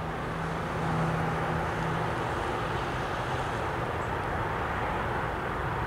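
GE ES44AH and ET44AH diesel locomotives approaching with a coal train: a steady engine drone over a wash of noise, with a low hum that fades about two seconds in.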